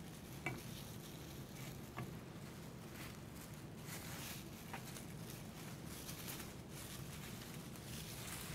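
Quiet kitchen handling as a knife and utensils work on a baked stuffed chicken thigh roll being untied and sliced: three light clinks, about half a second, two seconds and nearly five seconds in, over a low steady hum.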